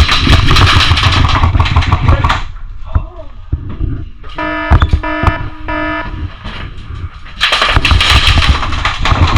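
Airsoft electric gun firing long full-auto bursts of rapid clicking shots, one at the start and another near the end. Between them comes a brief run of pulsed beeps.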